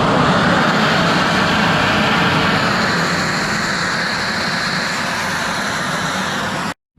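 Homemade steam cleaning gun blasting a high-pressure jet, a loud steady hiss over a low machine rumble. It cuts off suddenly near the end.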